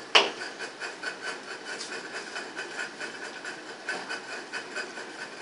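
A sharp knock right at the start as the handheld camera is moved, then a steady hiss with faint, irregular crackling and rustling.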